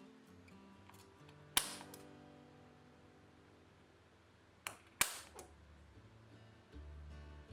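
Soft background music with three sharp knocks: one about a second and a half in, and two close together about five seconds in, each ringing briefly.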